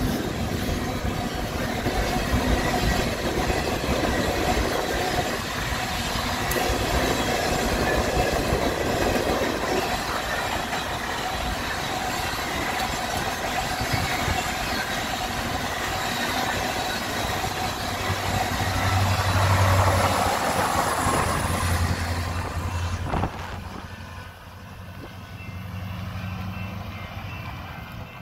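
Freight train of loaded coal cars rolling past close by: a steady rolling noise of steel wheels on rail, with a low hum joining about two-thirds of the way through. The noise drops away suddenly near the end as the last cars pass.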